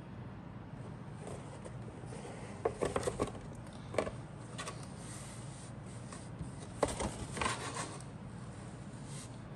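Cardboard model kit box being handled and turned, its card rubbing and scraping in short bursts about three, four and seven seconds in, over a steady low hum.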